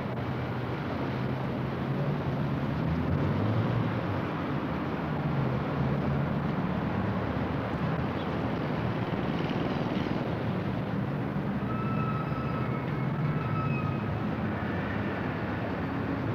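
Steady city road traffic: the continuous hum of cars driving past on a busy street.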